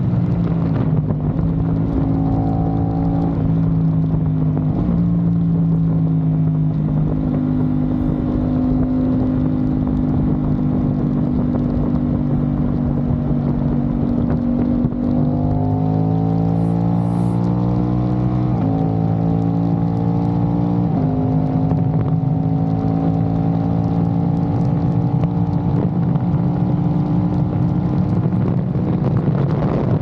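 Aprilia RS660's parallel-twin engine through a Mivv Delta Race exhaust, ridden at highway speed: a steady engine note that eases off, then climbs as the bike accelerates from about halfway through. Two upshifts come a couple of seconds apart, and the note then settles into a steady cruise. Wind rushes over the microphone at the start and end.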